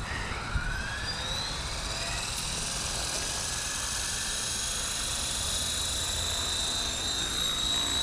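Blade Fusion 360 electric RC helicopter's motor and rotors spooling up: a whine rising in pitch over the first few seconds, then holding steady at flight speed. A short knock sounds about half a second in.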